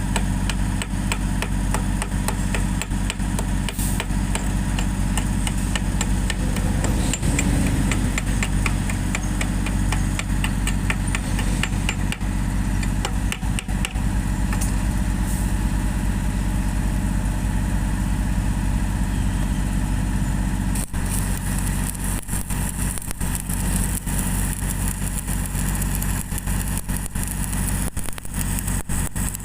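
Engine-driven welding generator running steadily, with the crackle of a stick-welding arc on a steel pipe over it.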